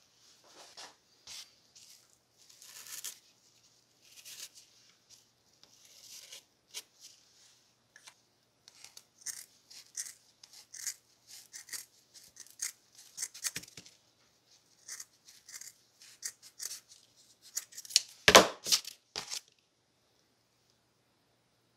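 Scissors cutting a disc out of a velcro-backed abrasive pad: a long run of short, crisp snips and rustles of the fibrous pad, with the loudest, rasping cuts near the end.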